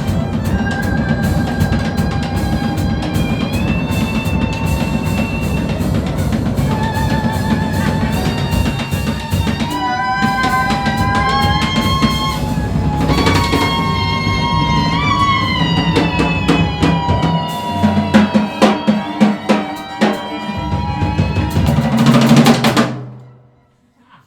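Free-improvised ensemble music: busy drum-kit rolls and cymbal hits under sustained, sliding high notes from strings or voice, building to a loud peak and cutting off sharply near the end.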